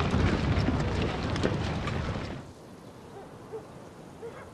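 A dense low rumble with scattered crackles, like distant battle noise, cuts off about two and a half seconds in. It gives way to a quiet rural background with a few short, low hooting bird calls.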